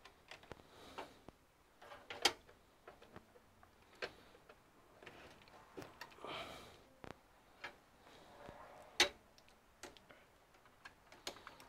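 Irregular clicks and taps of plastic power connectors and wires being handled inside an open metal PC case, with brief rustling of the cable bundles. Two sharper clicks stand out, about two seconds in and about nine seconds in.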